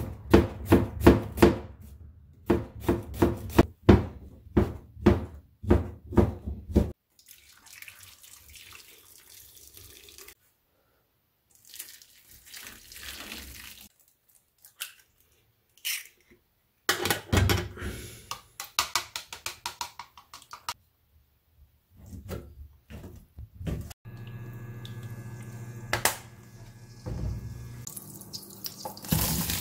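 A kitchen knife slicing an onion on a plastic cutting board in quick strokes for about seven seconds. Then water is poured from a kettle over fish cake strips in a brass pot, followed by another run of fast knife strokes. Near the end comes a steady hum from the induction cooktop, and the oil in the pan starts to sizzle.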